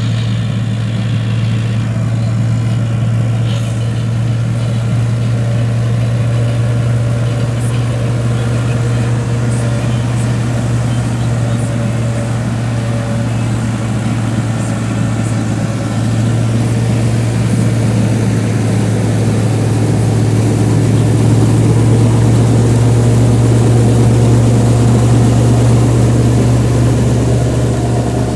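Tractor engine running steadily while driving a straw chopper machine, a constant deep hum that grows a little louder past the middle.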